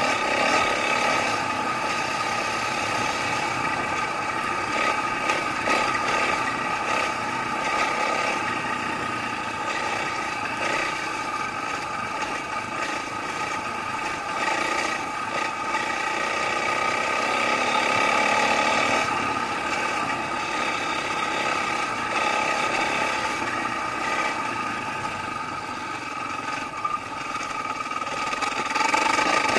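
Dirt bike engine running steadily while it is ridden along a dirt trail, its revs rising briefly about halfway through.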